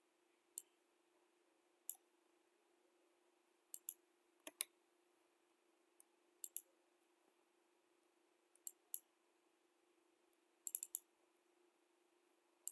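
Computer mouse clicking: sharp single clicks and quick double-clicks every second or two, with a fast run of clicks near the end. A faint steady hum lies underneath.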